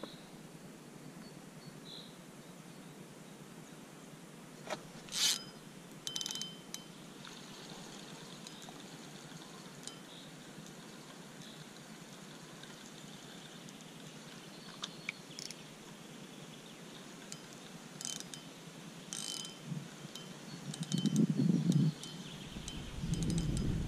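Fishing reel's drag ratcheting in several short bursts as a hooked carp pulls line while being played. Louder low rumbles come near the end.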